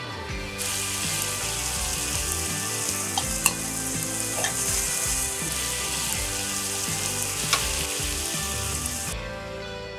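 Nishime simmering liquid bubbling and sizzling hard in a frying pan over high heat as it boils down almost completely. Two light knocks of a utensil come during it, and the sizzle cuts off suddenly near the end.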